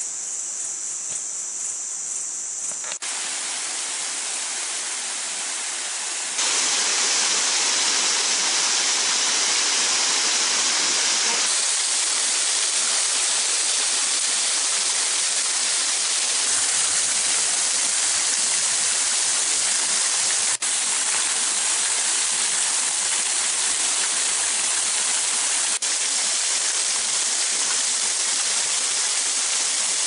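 A faint high insect chirring over a meadow, then, about three seconds in, the rushing and splashing of the Beușnița waterfall pouring in thin streams over mossy rock. The water sound is steady and gets louder about six seconds in.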